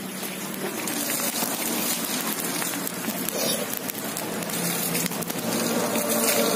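Open fire of wood and charcoal crackling and hissing as a whole milkfish grills over it, a steady hiss dotted with many small crackles, growing slowly louder.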